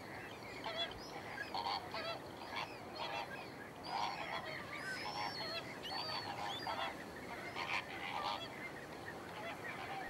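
A flock of flamingos calling: a steady chatter of many short, overlapping calls.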